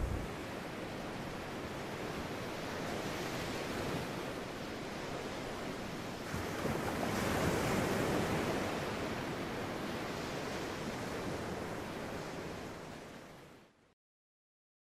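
Sea waves washing in shallow water: a steady rushing wash that swells in the middle, then fades away near the end into silence.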